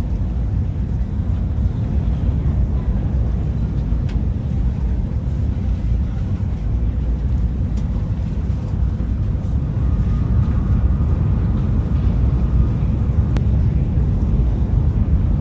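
Steady low rumble of the Whoosh high-speed electric train running along the line, heard from inside the passenger carriage, with a few faint clicks.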